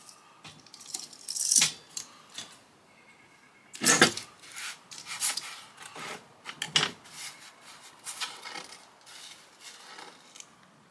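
Metal parts of a ceiling fan being taken apart: irregular clinking and clattering, with a few louder knocks about a second and a half in, about four seconds in and near seven seconds.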